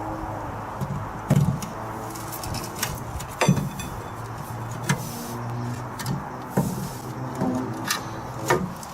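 Scattered metallic knocks and clunks as the replacement rear strut is worked into place, about four sharp ones spread through, over a steady low hum.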